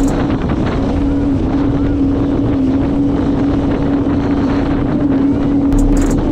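Yamaha watercraft engine running steadily under way, a constant hum, with wind buffeting the microphone.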